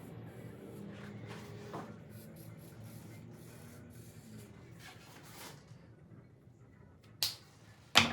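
Soft rustling and handling sounds with scattered light clicks, then two sharp knocks near the end, the second one louder.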